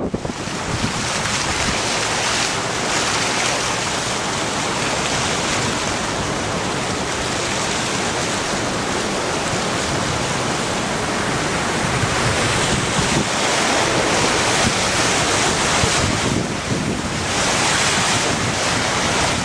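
Steady rushing wind and water noise, with wind buffeting the microphone, a little louder in the last several seconds.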